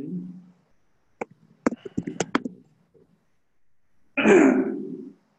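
Computer keyboard typing: a quick run of about half a dozen keystrokes between one and two and a half seconds in. Near the end comes a brief vocal sound from the typist.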